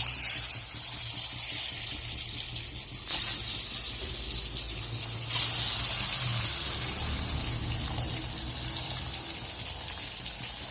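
Boiled eggs sizzling and spattering in hot mustard oil with turmeric in a kadai. The sizzle flares up suddenly at the start and again about 3 and 5 seconds in, then settles into a steady fry.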